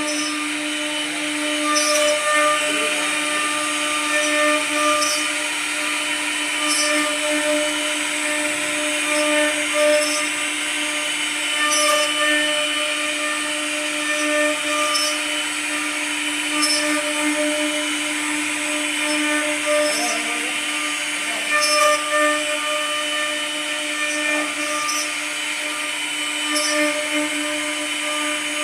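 CNC router spindle running steadily at high speed with a constant whine, cutting, with short sharp ticks and louder swells every second or two.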